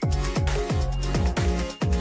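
Electronic background music with a steady beat, about four a second, over held synth notes.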